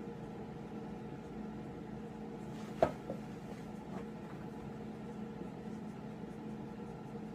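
Dry-erase marker writing on a whiteboard over a steady room hum, with one sharp knock about three seconds in and a fainter one just after.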